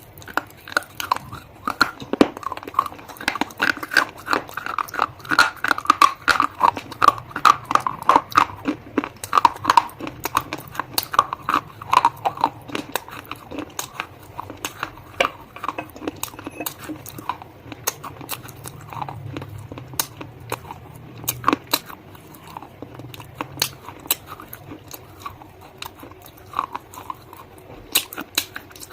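Close-up crunching and chewing of hard, crunchy bites: a dense run of sharp crackles for the first dozen seconds, then slower, scattered crunches.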